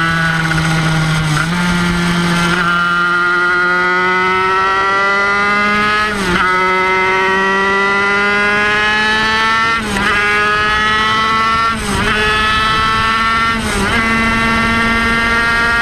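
Kreidler Van Veen 50cc single-cylinder two-stroke racing engine running flat out at high revs. Its high-pitched note climbs slowly and dips briefly about six times, then picks up again each time.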